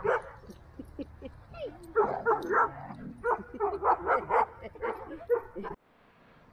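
Dogs barking and yipping in play, in quick bursts, cutting off suddenly near the end.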